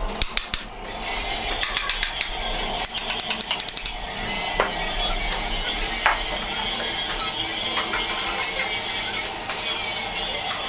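Ratchet wrench clicking as it cranks the threaded screw of a manual truck-tyre spreader, in a quick run of clicks during the first few seconds, followed by a steady rushing noise.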